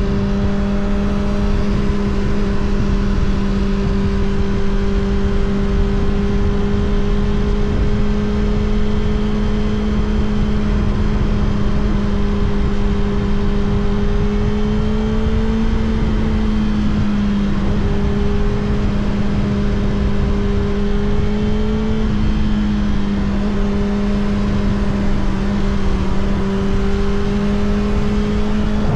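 A 2024 Kawasaki ZX-6R's 636 cc inline-four engine cruising at steady revs under a steady rush of wind and road noise. Its note rises a little and drops back a few times, about halfway through and again later on.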